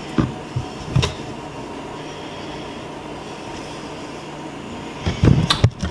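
Steady low background hum, broken by a few short knocks and a cluster of bumps near the end, typical of a handheld camera being moved about.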